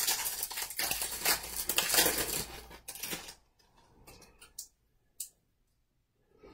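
A trading-card pack being torn open and its wrapper crinkled, with the cards handled and clicking together. After about three seconds it stops, leaving a few soft clicks.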